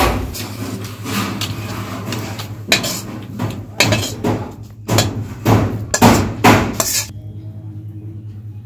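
Metal spatula scraping and knocking against a steel karahi while stirring a thick mash, in irregular strokes. The clatter stops about seven seconds in, leaving a low steady hum.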